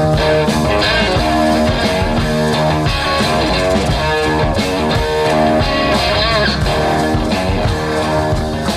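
Background rock music led by guitar, with bass and a steady beat.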